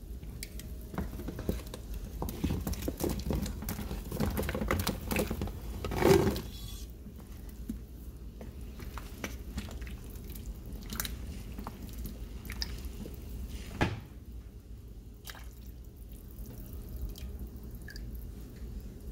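Chunks of carrot, potato and chayote dropped into a pot of boiling broth, plopping and splashing for the first several seconds, with one loud splash about six seconds in. After that the broth bubbles on at a rolling boil with scattered clinks and one sharp knock about two thirds of the way through.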